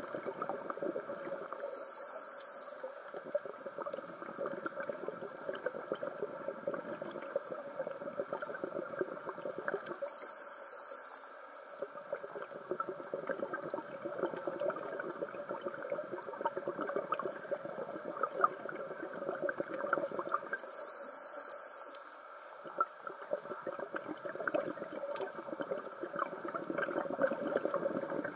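Underwater sound through a camera housing: a steady crackling, bubbly water noise, broken three times, about nine seconds apart, by a short high hiss like a diver's breath drawn through a scuba regulator.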